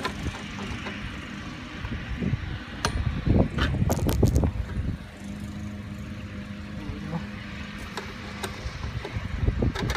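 Hand Phillips screwdriver working a screw out of a tail light housing: scattered clicks and taps, with a cluster of them about four seconds in, over a low background rumble. A steady low hum runs through the middle for a few seconds.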